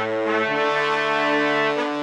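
Music of slow, held chords, moving to a new chord about half a second in.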